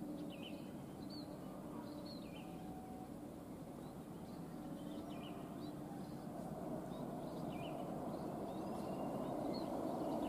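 Small birds chirping in short, repeated calls over a low rumble that grows steadily louder from about halfway through.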